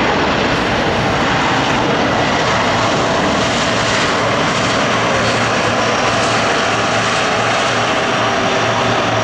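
Lockheed C-130 Hercules turboprop engines and propellers running loud and steady: a continuous drone with a steady whine over it.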